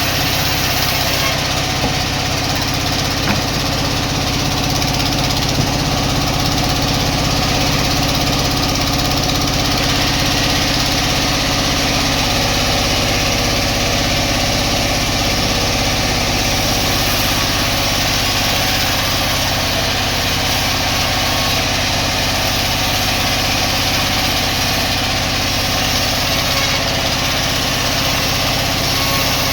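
Sawmill machinery running steadily: a constant mechanical drone from the mill's drive and saw, without pauses.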